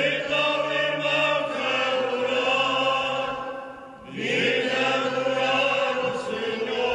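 Voices singing a Portuguese Communion hymn in long held notes, in two phrases with a short break for breath about four seconds in.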